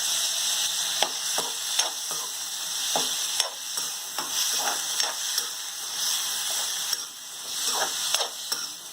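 Onion, tomato and ginger-garlic paste sizzling in hot oil in a pan, with a spatula stirring and scraping against the pan in irregular strokes.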